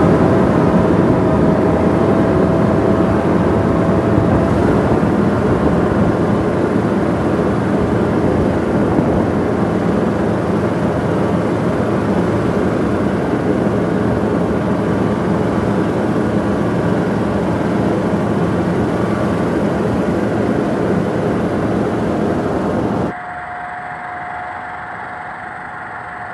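A loud, steady engine-like drone with a faint whine running through it, dropping sharply to a quieter steady hum about 23 seconds in.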